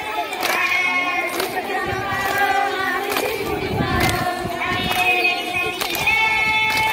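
A group of women singing a kummi folk song together through a loudspeaker, with a sharp hand clap about once a second keeping the beat of the kummi dance.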